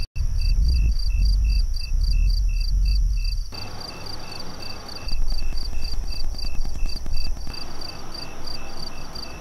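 Crickets chirping in a fast, even rhythm of several chirps a second, over a low rumble that drops away about three and a half seconds in.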